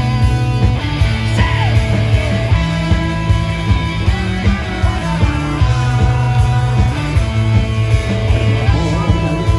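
Loud rock music: electric guitars, bass and drums with a steady beat, and some sung or guitar-lead lines over it.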